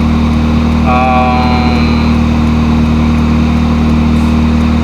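A car engine idling steadily with an even low hum. About a second in, a brief higher-pitched tone sounds over it.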